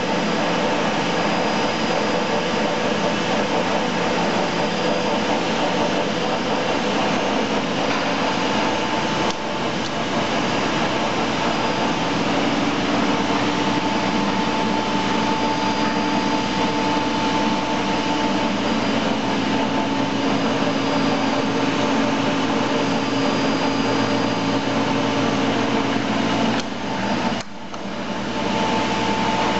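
Ernault Somua Jupiter 830 engine lathe running with its spindle and chuck turning: a steady mechanical running noise with a whine that comes and goes. The sound briefly drops near the end and picks up again.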